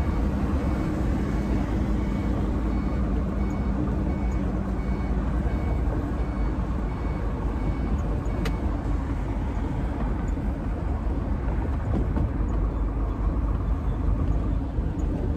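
Steady engine and road rumble inside the cab of an Iveco truck cruising on a highway, with a faint high beeping repeating through the first five seconds and a single sharp click about eight and a half seconds in.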